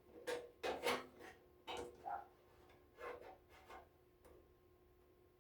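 Handling noises from reassembling a plastic electric heater: a run of short knocks, clicks and rubs of parts and screws being moved, thinning out after about four seconds.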